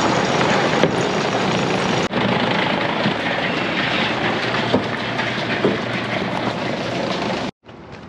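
Silo feed conveyor machinery running, a loud steady mechanical noise that cuts off suddenly near the end.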